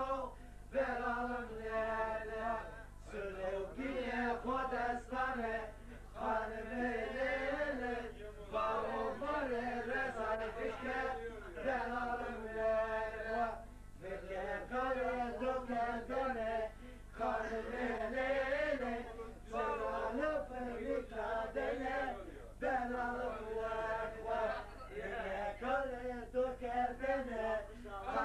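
Male voice singing a folk song in long, wavering phrases broken by short pauses, over a steady low hum.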